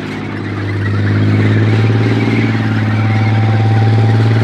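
Main battle tank driving past on its tracks: a steady, loud low engine note that builds about a second in, over the clatter and rumble of the running gear.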